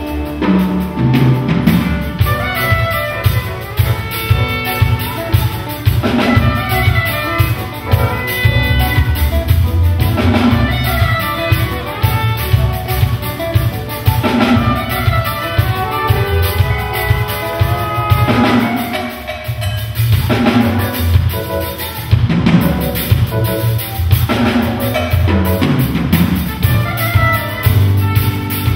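Live jazz band playing: a drum kit keeps a steady beat under double bass notes, with saxophone melody lines on top. The full band comes in about a second in.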